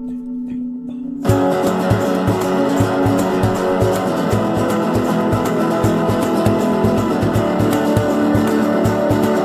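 Background music: a held chord, then just over a second in a full band comes in loudly with a steady beat.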